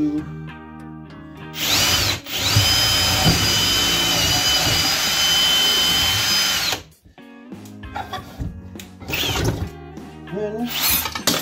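Cordless drill spinning a long drill bit into a trailer wall: a short burst, then after a brief stop a steady high whine for about four and a half seconds that cuts off about seven seconds in.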